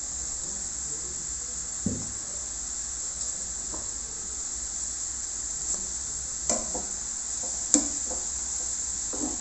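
Grated carrot frying in ghee in a nonstick pan, a steady sizzle, with a few knocks and scrapes of a spatula stirring it, mostly in the second half.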